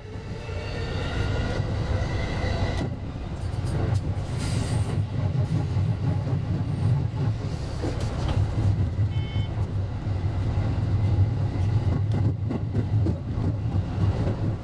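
JR West 223 series electric train running along the line, heard from the cab as a steady low rumble. A high whine of several tones sits over it and stops about three seconds in.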